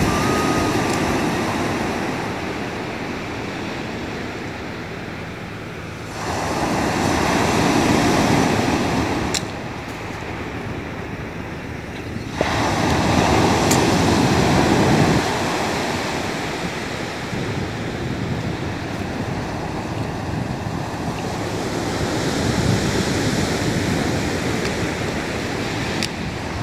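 Ocean surf breaking and washing up on a pebble beach, a steady rush that swells and eases, with louder stretches starting suddenly about six and twelve seconds in.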